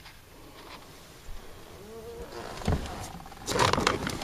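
Handling noise: irregular rubbing and scraping on the microphone as the phone is moved about, quiet at first and loud from about two-thirds of the way in.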